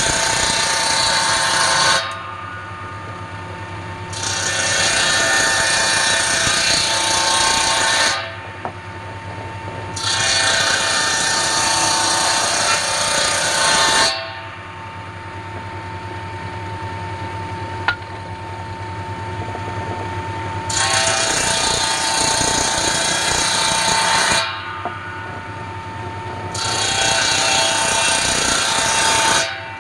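Table saw ripping thin strips from palm wood: five loud cuts of a few seconds each, with the blade spinning free and humming between them and the longest free-running gap in the middle.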